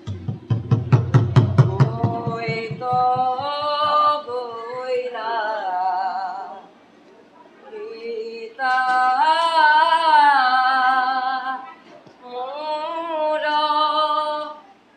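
A rapid run of percussive strokes for about two seconds, then a high voice singing a long, wavering melody in three phrases with short breaks between them, as stage music for a play.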